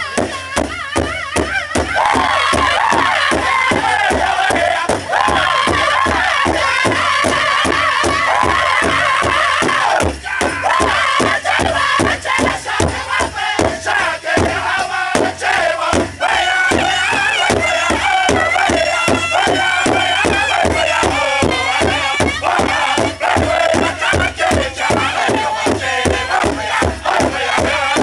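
Northern-style powwow drum group singing a song in high, strained voices in unison, over a large shared powwow drum struck with a steady, even beat.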